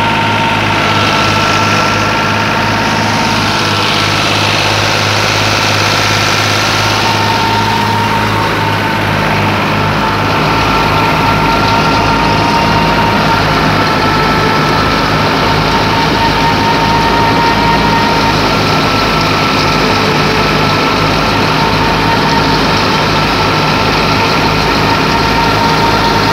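New Holland Fiat 480 tractor's diesel engine running steadily at working speed, driving a wheat thresher through its PTO shaft, with the thresher's drum, pulleys and belts whirring and a steady whine over the engine.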